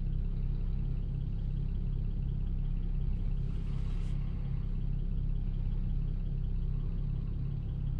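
BMW 335i's N54 twin-turbo inline-six idling steadily, with a brief hiss about three seconds in.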